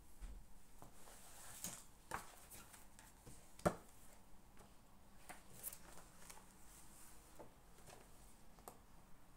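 Faint handling sounds of someone studying at a desk: soft rustling with scattered light taps and clicks, and one sharper knock a little after three and a half seconds in.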